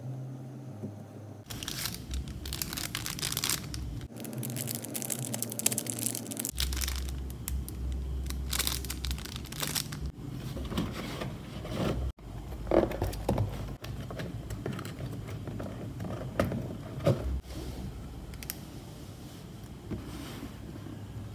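Plastic packaging crinkling and rustling as items are handled, with a few sharp taps and knocks of objects being set down.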